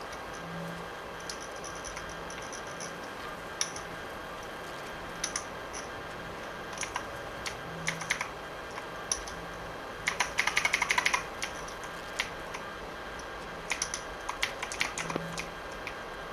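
Computer keyboard keys clacking: scattered single keypresses, then a rapid flurry of presses about ten seconds in.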